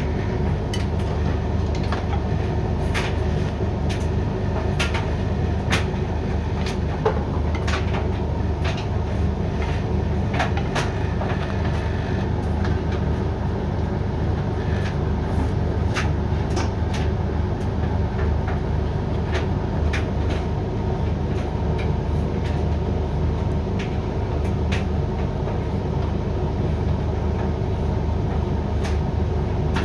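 Hoover dryer on its synthetics main-drying phase: a steady hum of the turning drum and fan, with irregular clicks and knocks as the load tumbles in the drum.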